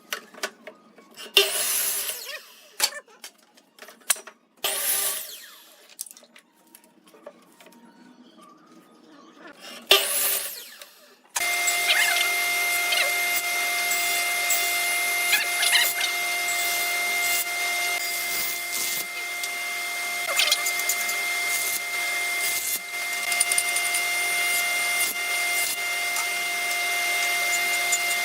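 A few short, separate bursts of tool-on-wood noise. Then, about eleven seconds in, an electric power tool starts abruptly and runs steadily with a constant whine.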